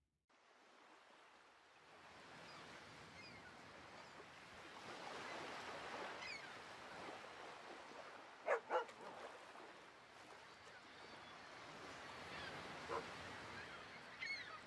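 Outdoor-type ambience: a steady rushing background with faint chirps, and two short, loud animal yelps close together about halfway through, with a fainter call near the end.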